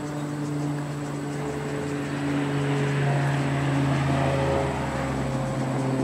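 A steady mechanical hum, with a low vehicle rumble that builds about two seconds in and fades near the end.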